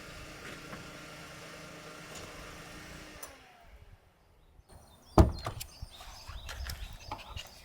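Car engine idling steadily, then switched off about three seconds in, its hum dropping in pitch and dying away. About five seconds in a car door shuts with a loud thud, followed by light knocks and rustling.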